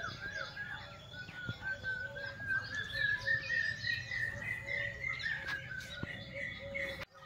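Small birds chirping in the background, with a faint steady high tone that slowly rises in pitch over the first five seconds.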